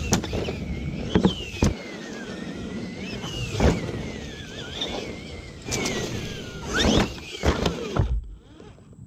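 Axial SMT10 RC monster truck driving hard: its electric motor and drivetrain whine, rising and falling in pitch with the throttle, over tyre noise on pavement and gravel, with several sharp knocks. The sound drops away near the end.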